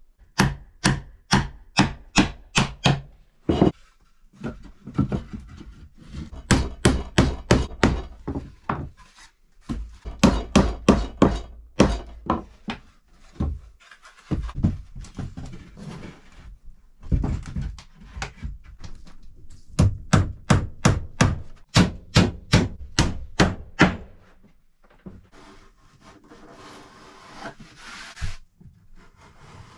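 Hammer striking wood in quick runs of blows, about three or four a second, several runs broken by short pauses. Near the end the blows stop and a blade scrapes and shaves along wood.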